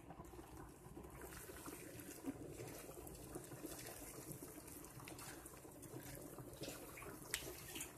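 Faint wet squelching and scraping of a silicone spatula stirring a thick cheese and cream sauce with chicken in a cast-iron skillet, with a few light ticks.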